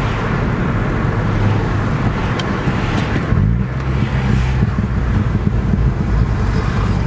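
Car engine running under way with road and wind noise, heard from inside the cabin. The engine note shifts in pitch about three seconds in.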